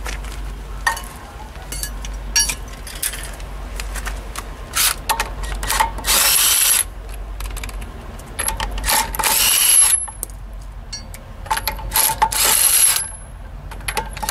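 Cordless impact wrench run in three short bursts of about a second each, with small metallic clinks of tools and parts in between.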